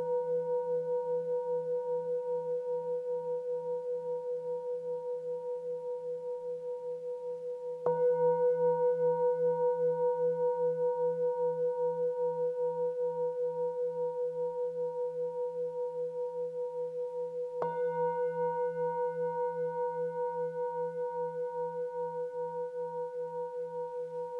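A singing bowl struck with a wooden mallet twice, about 8 and 18 seconds in. Each strike rings on in a long, slowly fading hum that wavers steadily, over a deeper pulsing drone.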